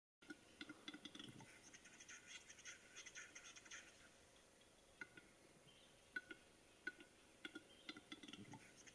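Western capercaillie cock's display song at the lek, faint: a run of rapid scratchy notes in the first few seconds, then single dry clicks from about five seconds in that come closer and closer together toward the end.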